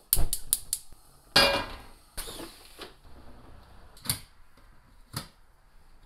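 A few quick clicks, then a cast iron pan set down on the gas range's grate with a ringing clang and a short rattle. Two single sharp clicks follow about a second apart.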